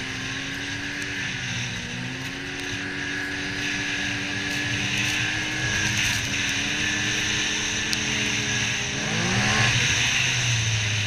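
Yamaha Viper XTX snowmobile's four-stroke three-cylinder engine running at a steady cruise over a steady rushing hiss, the revs easing slightly twice, then dropping and climbing sharply near the end.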